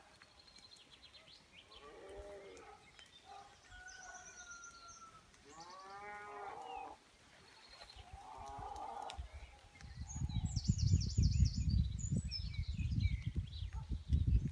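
Cattle mooing several times, with small birds chirping high and thin between the calls. About two-thirds of the way through, wind starts buffeting the microphone in gusty low rumbles and becomes the loudest sound.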